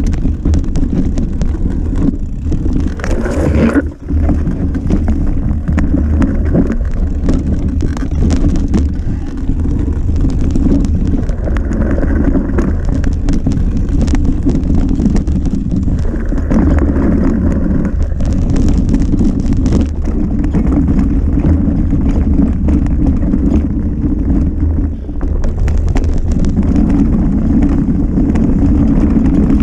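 Mountain bike running fast down a rooty trail: a steady rush of wind on the microphone over the rumble of tyres and frame, with frequent knocks and rattles as the wheels hit roots.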